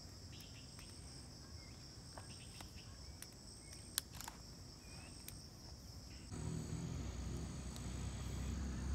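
Insects chirring in a steady, high, continuous drone, with a single sharp click about four seconds in. About six seconds in, a low rumble comes up underneath.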